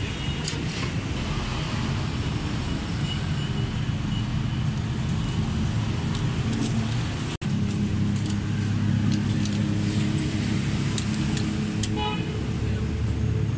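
A car engine idling steadily, with scattered light clicks and ticks over it. The sound cuts out abruptly for an instant about halfway through, then carries on.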